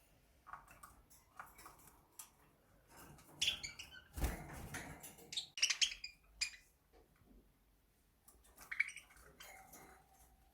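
Scattered budgerigar chirps among small clicks, with one louder knock a little past four seconds in.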